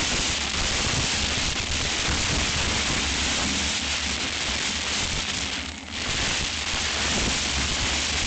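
Heavy rain and wind in a severe thunderstorm: a steady rushing hiss with a low rumble of wind, easing briefly about six seconds in.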